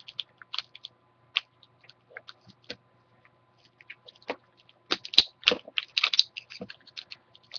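Fingertips peeling adhesive tape off a laptop LCD panel's video cable connector: scattered small crackles and clicks, thickest about five to six seconds in.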